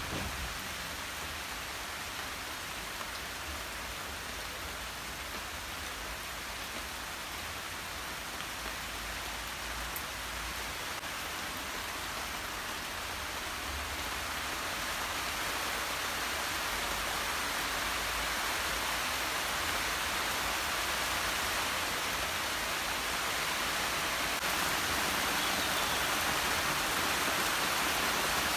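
Steady rainfall, growing gradually heavier.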